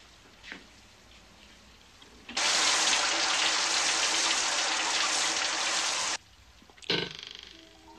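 Shower spray running hard for about four seconds, then cutting off abruptly. Near the end, a single sharp bang with a short ringing tail.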